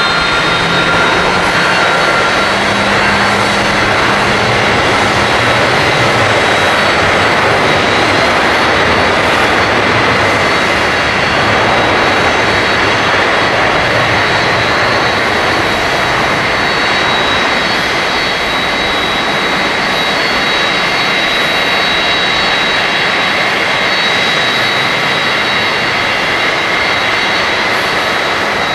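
Twin Rolls-Royce Trent 800 turbofans of a Boeing 777-200ER at takeoff thrust: a loud, steady jet roar with a high fan whine over it, through the takeoff roll, liftoff and climb-out. The roar eases a little in the later part.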